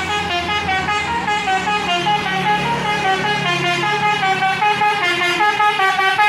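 Bus telolet basuri horn playing a quick melody of short, rapidly changing notes, with a steady low hum underneath.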